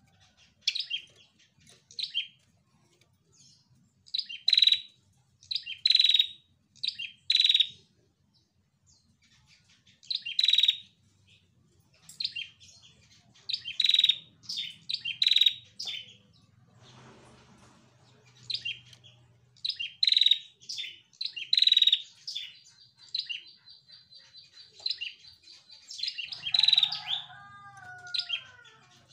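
A caged female prenjak kepala merah (ashy tailorbird) calling: loud, sharp, high chirps in quick groups of a few notes with short pauses between. About two-thirds of the way through, it gives a rapid buzzing trill lasting a few seconds.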